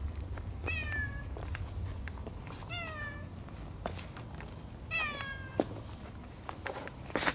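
A cat meowing three times, about two seconds apart, each meow falling in pitch. A few sharp clicks are scattered between them, the loudest near the end.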